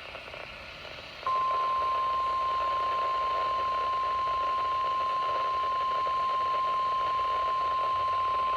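NOAA Weather Radio warning alarm tone, a single steady 1050 Hz beep over faint radio hiss. It starts about a second in and holds unbroken, signalling that a warning broadcast is about to be read.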